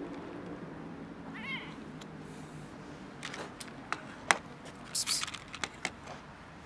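A cat meows once, a short call that rises and falls, about a second and a half in. Then comes a run of sharp clicks and taps, loudest about four seconds in, as a plastic tub of dry cat food is set down on a wooden bench.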